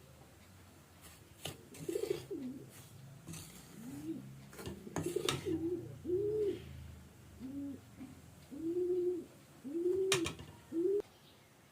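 A bird calling in a series of short, low notes that rise and fall, with a few sharp clicks among them.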